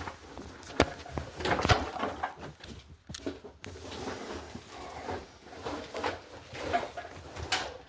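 Scattered sharp knocks and clatter with rustling, two of the knocks sharper than the rest about a second and two seconds in.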